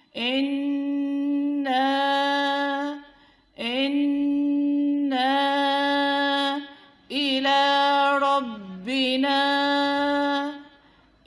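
A woman's voice reciting the Quran in a slow, level chant, stretching each vowel into a long held note. There are four drawn-out phrases with short breaths between them, and the pitch dips briefly at the end of the last two.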